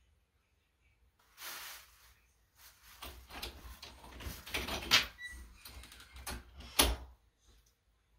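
A person getting up and walking across a bedroom, then opening a door and shutting it behind him. There is a soft rustle, then a string of knocks and clatter, loudest about five and seven seconds in.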